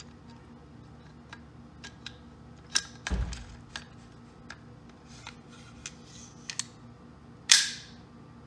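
Metal parts of an AR-15 upper receiver clicking and sliding as the bolt carrier group and charging handle are pushed in. There is a dull knock about three seconds in, then a loud sharp metallic snap near the end as the assembly clicks home.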